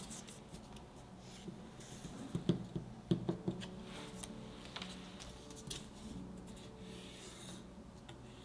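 A white lining strip being peeled and slid off the side of a set chocolate ganache slab: soft rubbing and crinkling of the strip, with a few light knocks and taps, the loudest a cluster about two and a half to three and a half seconds in.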